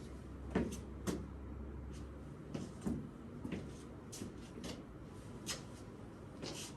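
Irregular short knocks, taps and scuffs, about a dozen, spaced unevenly, over a low hum that stops about two seconds in.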